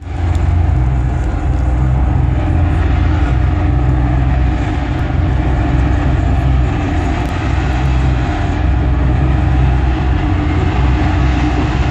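Loud band sound from an outdoor stage's PA speakers, dominated by a heavy, booming low bass that runs on without a break.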